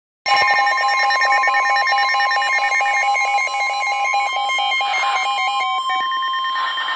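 NOAA Weather Radio warning alarm tone: a steady electronic tone that starts abruptly and holds for about seven seconds, with a fast-stepping, alternating electronic tone pattern sounding over it. The tone signals that a warning broadcast follows.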